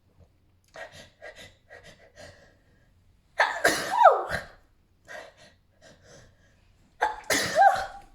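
A woman sneezing twice, each sneeze preceded by several short, catching build-up breaths. The first sneeze comes about three and a half seconds in, with a voiced cry that falls in pitch. The second comes near the end.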